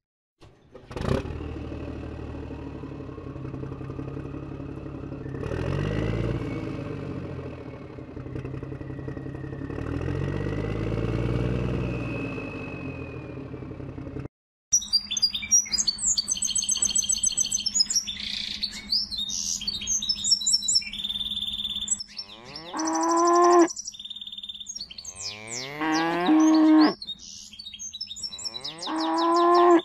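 A steady engine-like motor sound that swells twice, then cuts off abruptly about halfway through. After it, birds chirp and cows moo three times, each moo long and rising, near the end.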